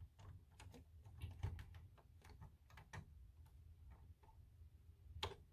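Faint, irregular clicks and taps of plastic Lego bricks being handled as the model's landing-gear pieces are taken out and moved, with a sharper click about five seconds in.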